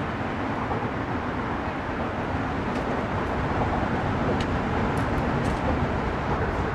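Steady rumbling noise with a few faint ticks.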